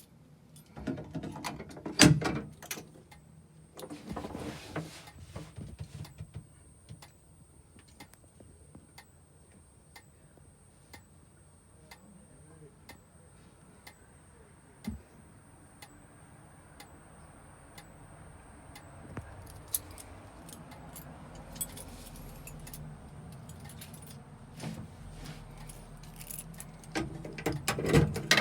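Fire alarm strobe flashing, giving a sharp click at an even pace of somewhat more than one a second over a faint steady high whine. Rattling, jangling handling noises sound near the start and again near the end.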